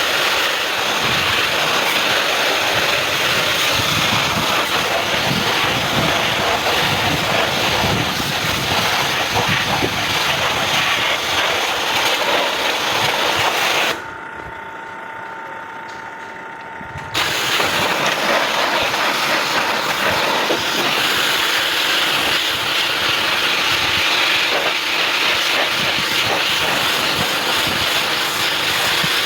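Pressure washer spraying a jet of water over air-conditioner condenser coils, a loud steady hiss. The spray stops for about three seconds in the middle, leaving a fainter steady tone, then starts again.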